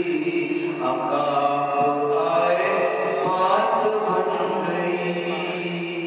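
A man's solo voice chanting a naat, a devotional poem in praise of the Prophet, in long held melodic notes.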